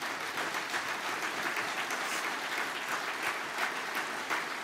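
Large crowd applauding, many hands clapping in a steady, dense patter.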